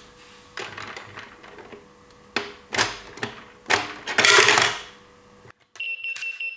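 Small plastic toy parts handled: irregular clicks, rattles and rustling, with a louder rustle about four seconds in. Near the end a toy's steady electronic beeping starts up.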